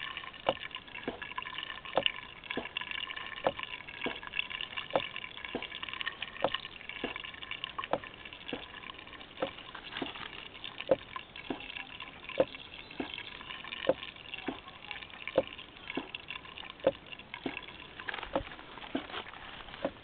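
Water from a solar-heated liquid-piston Stirling water pump splashing out of its outlet pipe into a plastic bowl, a steady splashing trickle. Over it comes a regular beat of sharp clicks, a strong one about every one and a half seconds with a weaker one just after, keeping time with the pump's strokes.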